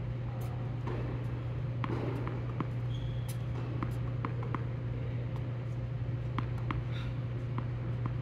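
Steady low hum of an indoor tennis hall, with scattered light ticks and pops and two brief high squeaks from play on the courts.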